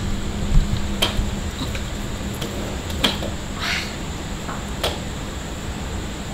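Steady low hum of room background noise with a few sharp clicks and light taps scattered through it, and a short scraping hiss about three and a half seconds in.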